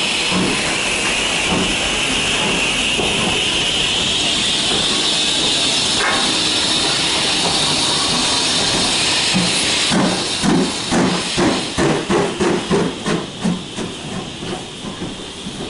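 Steam locomotive blowing off a loud, steady hiss of steam, then about ten seconds in starting to chuff, with exhaust beats about two or three a second that fade as it pulls away.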